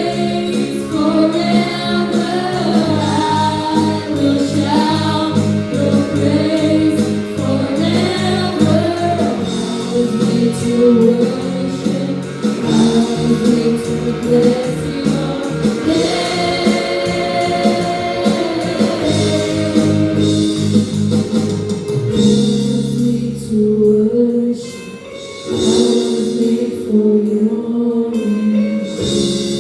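Junior praise team singing a gospel worship song together with band accompaniment; about two-thirds of the way through the voices drop back and the band plays on with drum hits.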